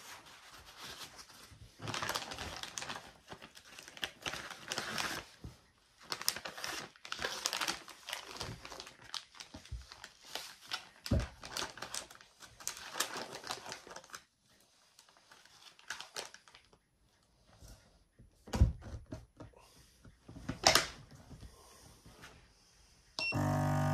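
Plastic vacuum-seal bag crinkling and rustling as it is handled and fed into a battery-powered PacBak Roam 18 V portable vacuum sealer, with two sharp knocks as the lid is shut. Near the end the sealer's pump starts suddenly with a steady low drone as it begins drawing the air out of the bag.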